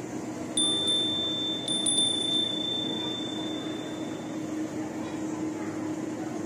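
A high, clear bell-like chime is struck about four times in quick succession from about half a second in, then rings on and fades over a couple of seconds. Under it runs a steady low background hum.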